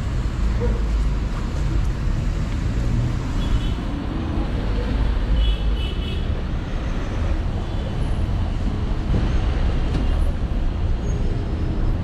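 City street traffic noise: a steady rumble of passing cars and buses, with a couple of brief high chirps about a third of the way in.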